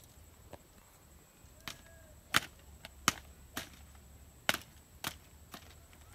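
A run of sharp snaps, about nine, irregularly spaced and a few loud, as water hyacinth stems are snapped by hand.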